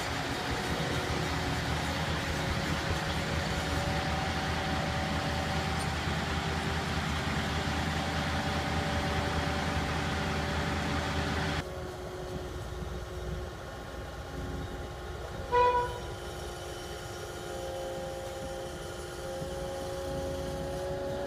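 Cat 299D XHP compact track loader's diesel engine running steadily as the machine moves about. A little past halfway the sound drops abruptly to a quieter, more distant engine, and a few seconds later a single short beep sounds, the loudest moment.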